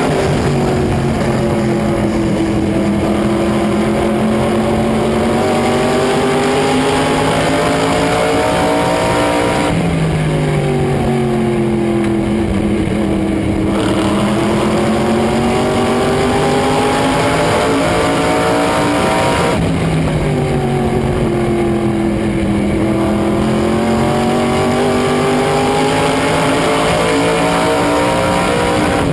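Race car engine at racing speed on an oval, its pitch dropping as it lifts for the turns and climbing back as it accelerates down the straights, about three times.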